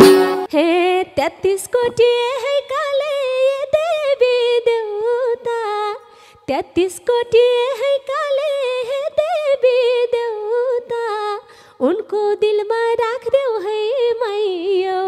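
A woman singing a Nepali folk (dohori) melody solo without accompaniment, in long, wavering, ornamented phrases. She breaks briefly for breath about six and a half seconds in and again near twelve seconds.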